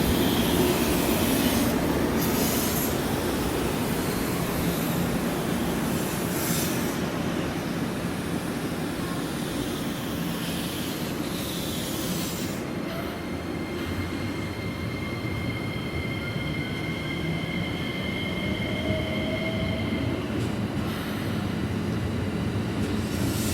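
Electric commuter train running slowly at the station, rumbling on the rails. From about halfway it gives a steady high squeal that stops shortly before the end.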